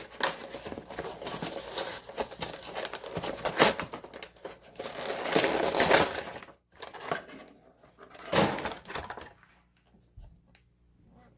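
Action figure packaging being pulled open, plastic and cardboard crinkling and tearing with sharp crackles, most busily in the first six seconds, then one more burst about eight and a half seconds in before it goes quiet.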